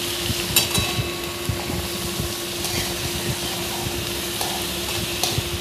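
Chopped tomatoes and onions sizzling in oil in a metal kadai while a spatula stirs them, with a few sharp scrapes of the spatula against the pan, over a steady low hum.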